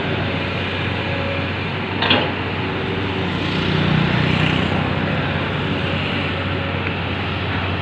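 Komatsu PC200 hydraulic excavator's diesel engine running steadily under load as the machine digs and moves soil. A sharp knock comes about two seconds in, and the low engine note swells briefly around four seconds in.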